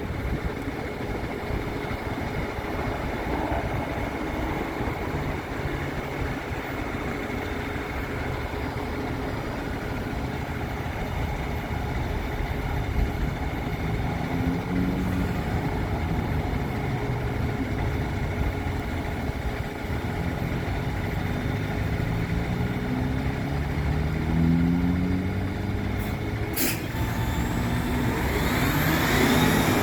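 Steady traffic noise from vehicles and trucks on and around the off-ramp. Through the middle an engine climbs in pitch several times in steps, as it accelerates through its gears. Near the end there is a sharp click, followed by a brief high-pitched squeal.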